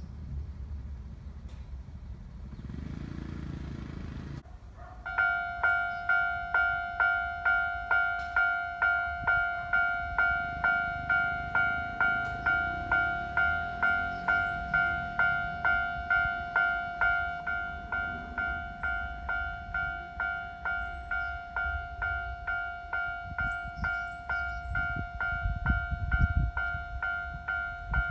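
Japanese level-crossing warning bell starts about five seconds in and keeps ringing at about two strikes a second, each a bright two-tone ding, signalling that a train is approaching. A low rumble swells beneath it near the end.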